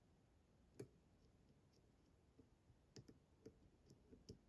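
Faint, sharp clicks of a shallow hook pick working the spring-loaded wafers of a Fichet 666 lock held under tension: a single click about a second in, then a run of small clicks from about three seconds in to near the end.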